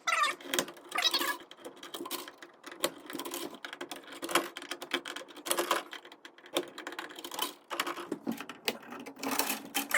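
Irregular metallic clicks, taps and scrapes of a screwdriver and wires being worked inside an open breaker panel as the wires are taken off their terminals.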